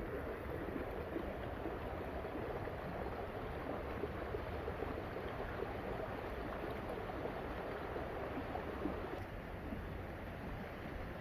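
Flowing stream water, a steady rush that eases slightly near the end.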